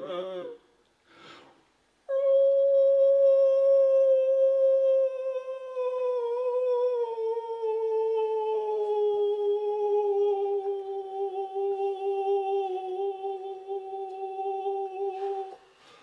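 A voice humming one long held note that sinks slowly in pitch, starting about two seconds in and cutting off just before the end.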